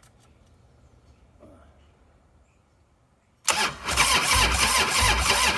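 1998 Harley-Davidson Softail's V-twin cranked by its electric starter, starting about three and a half seconds in: it turns over with a slow, uneven pulsing but does not fire. The engine only rolls over and won't start, on a low battery, with an old ignition coil the owner suspects.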